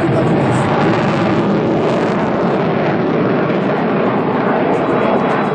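Belgian Air Force F-16 jet fighter's single jet engine, a steady loud rush of jet noise as the aircraft flies its display.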